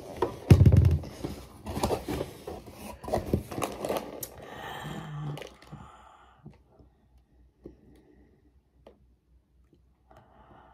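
Cardboard box flaps being opened and handled: scraping and rustling of cardboard with clicks, and a heavy thump about half a second in. It goes quiet after about six seconds, leaving a few faint ticks.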